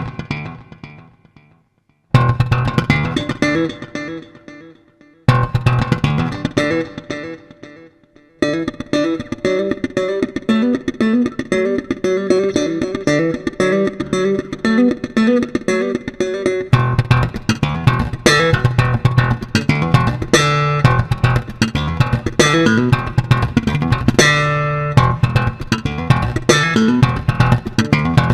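Music led by guitar and bass guitar: three chords struck and left to ring out and fade, then a steady groove from about eight seconds in, with a heavier, fuller bass from about seventeen seconds in.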